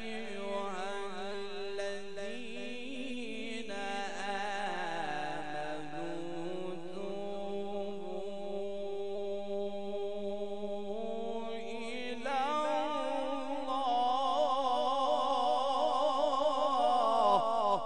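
A man's solo melodic Qur'an recitation (tajweed), long held phrases with wavering ornaments. About twelve seconds in the voice jumps to a higher, louder register, and the phrase breaks off just before the end.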